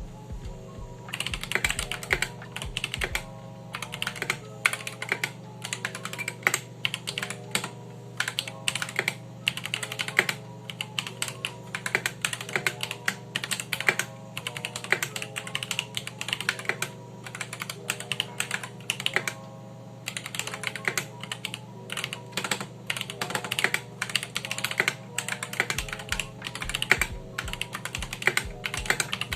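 Typing on an Akko 3061S mechanical keyboard fitted with factory-lubed Akko Jelly Purple tactile switches: a rapid, continuous run of keystrokes starting about a second in, with brief pauses.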